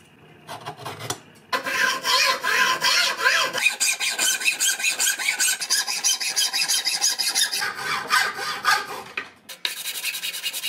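Hacksaw cutting through a G10 laminate block clamped in a bench vise: a steady run of quick rasping strokes. Near the end a different, faster scratching rub follows.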